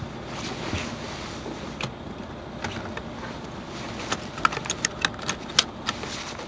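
Mercedes-Benz Intouro coach's diesel engine idling steadily at a standstill. Near the end, a quick run of about ten sharp clicks stands out over it.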